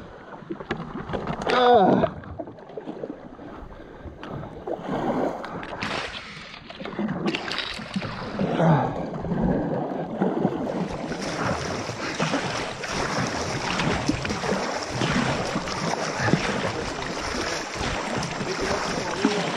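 Kayak paddle strokes splashing and dripping in river water beside the hull. About halfway through, the water noise thickens into a steady hiss.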